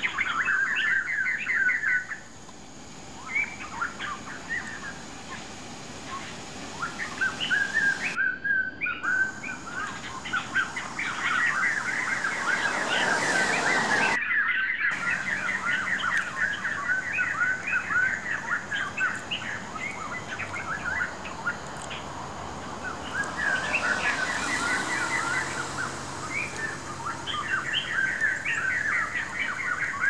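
A flock of white-crested laughingthrushes chattering in long, loud runs of rapid, repeated notes, with quieter spells between the runs. The sound drops out briefly twice.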